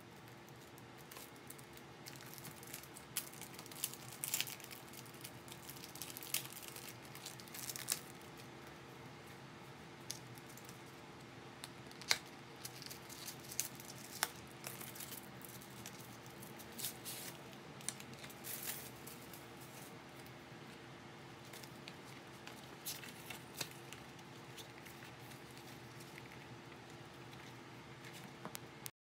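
Paper packaging and tissue paper being handled: scattered crinkling and rustling with light taps and clicks as a gift box and cards are moved about, over a faint steady hum.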